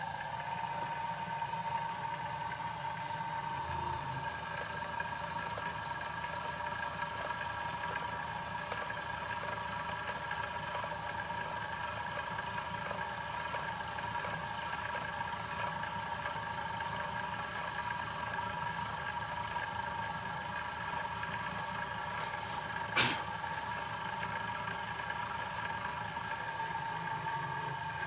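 Home-built mini CNC milling machine running, its spindle motor giving a steady whine while a small end mill cuts into a black workpiece. About five seconds before the end there is a single sharp click.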